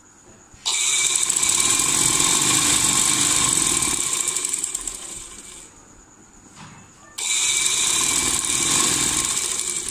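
Ladybird sewing machine running in two bursts of stitching, sewing stretched elastic onto a trouser waistband: the first starts just under a second in and slows to a stop after about five seconds, the second starts about seven seconds in. A steady mechanical whine with a fast needle clatter.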